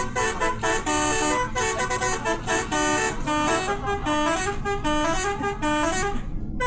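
Bus telolet horn, a bank of multi-tone air horns, playing a quick tune of changing notes, with a brief break near the end.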